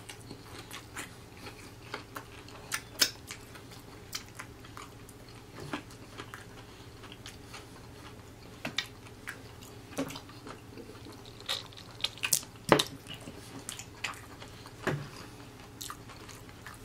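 Close-miked chewing of fried chicken: irregular wet mouth smacks and clicks, a few of them sharper and louder.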